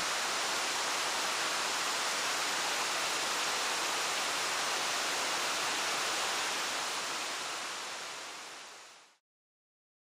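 Shiraito Falls, a wide curtain of many thin streams falling into a pool, rushing steadily. The sound fades out from about seven seconds in and is gone just after nine seconds.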